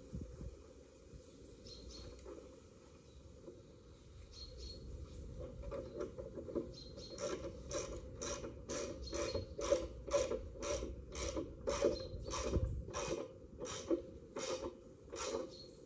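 A hand ratchet being worked in steady strokes, its pawl clicking about twice a second from about seven seconds in, after a few scattered clicks before that.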